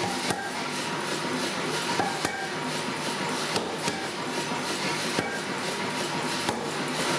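Mechanical power hammer striking a hot, glowing Damascus steel billet held under its dies, a steady run of repeated blows over the machine's running clatter.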